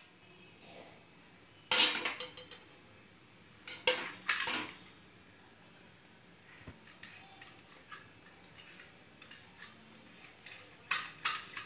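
Stainless steel idiyappam steamer plates and press clinking against each other: a few sharp metal clinks about two and four seconds in and again near the end, with faint small taps in between.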